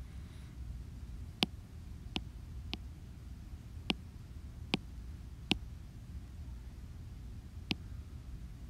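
Sharp taps on an iPad touchscreen as menu options are selected: about seven single clicks, unevenly spaced, over a low steady hum.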